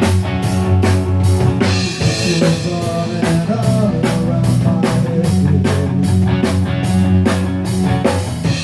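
A rock band playing an instrumental intro live in rehearsal. A drum kit keeps a steady beat under held bass notes and synth.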